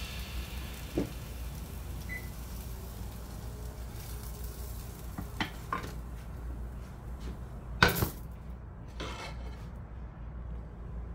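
Kitchen handling sounds of a nonstick frying pan and silicone spatula as a folded omelet is slid onto a ceramic plate: a few short clinks and knocks, the loudest about two-thirds of the way in, over a steady low hum.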